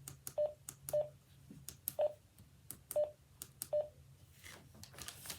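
Buttons being pressed on a Radioddity GD-77 handheld radio: a click at each press, five of them with a short beep from the radio, spaced irregularly about half a second to a second apart.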